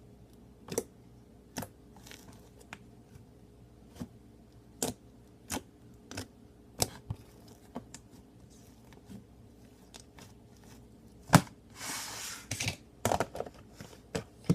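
Slime being squished and stretched by hand, giving sharp, irregular clicks and pops, with a short rustle about twelve seconds in.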